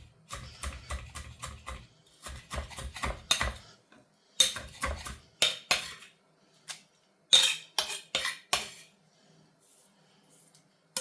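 Kitchen utensils on dishes: a fast run of even knocking strokes for the first three and a half seconds or so, then several separate, sharper clinks of metal cutlery against a bowl.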